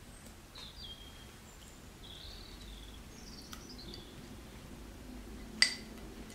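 Faint bird chirps in the background, then one sharp, ringing glass clink near the end as a small glass jar of honey knocks against the glass mixing bowl.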